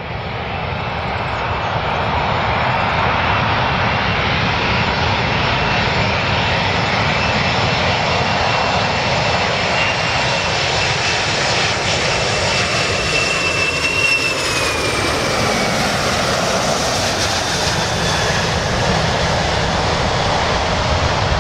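Boeing 747-400's four turbofan jet engines on landing approach, a loud steady jet rush that fades in at the start. About fourteen seconds in, a high whine drops in pitch as the airliner passes.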